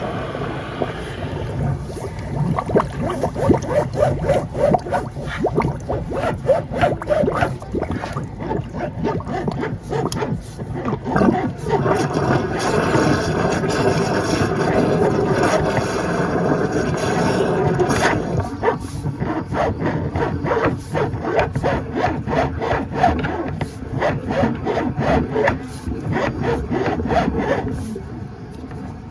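Water gurgling and glugging irregularly in a kitchen drain pipe, the sound of a pipe fouled with grease and dirt and close to blocking.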